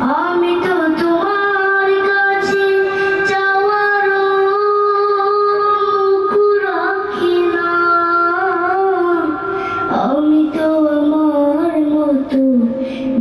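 A boy singing a Bengali Islamic gojol solo into a microphone, drawing out long held notes with wavering ornaments and melodic turns.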